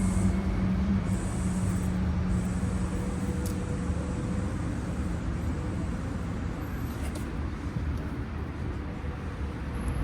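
Street traffic: a steady low vehicle rumble, with an engine hum that fades over the first few seconds.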